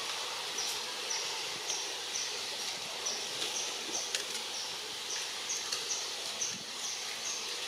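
Outdoor ambience: a short, high chirp repeated about twice a second over a steady background hiss, with a few faint clicks.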